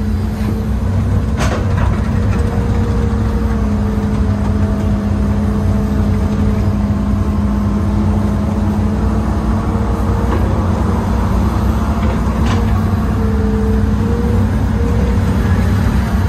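An old Hitachi excavator's diesel engine running steadily under load, heard from inside the cab, with a higher whine that comes and goes as the boom and bucket controls are worked. A few sharp clicks come through, one about a second and a half in and another near the end.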